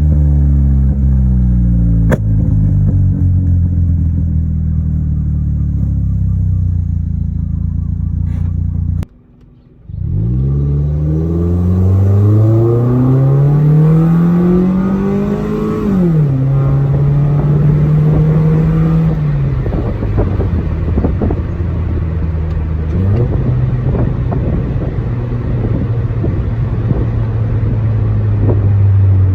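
Toyota Corolla 1ZZ-FE 1.8-litre four-cylinder heard through a short ram intake and a cat-deleted exhaust with resonators. The engine note sinks slowly at first, then breaks off for about a second. It then climbs steadily for about six seconds, drops sharply and settles into a steady lower hum with one small blip.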